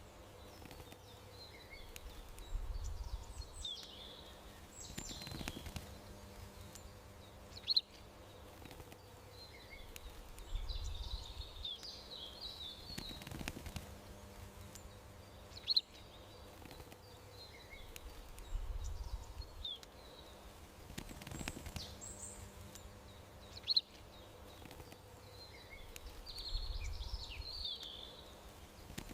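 Garden birdsong ambience: small birds chirping and twittering over a low steady hum. A short, sharp high chirp comes back about every eight seconds in the same pattern each time, as one short birdsong recording loops.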